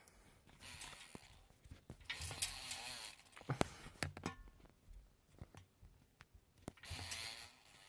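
Scraping and rustling handling noises in a few bursts, with several sharp clicks and a brief squeak midway.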